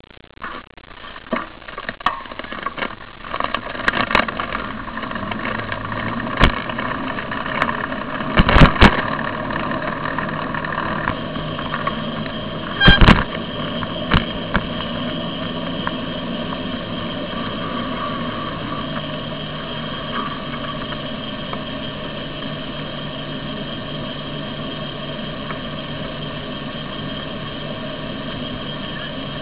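Road and traffic noise picked up by a camera riding on a moving bicycle: a run of sharp knocks and rattles over the first fifteen seconds or so, then a steady hum of riding with cars close behind.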